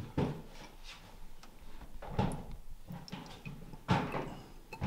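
Scattered light knocks and clicks, about five spread over the few seconds, from plastic centrifuge tubes, their screw caps and a plastic test-tube rack being handled while venom is pipetted into a tube.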